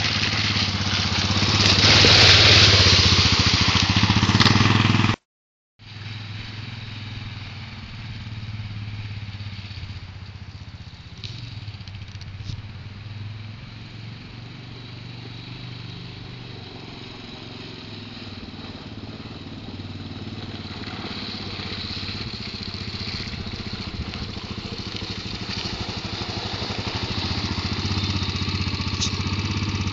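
Sport ATV (quad bike) engine running, loudest as it passes close in the first few seconds; the sound cuts out completely for about half a second around five seconds in, then the engine is fainter and slowly grows louder toward the end as the quad comes back.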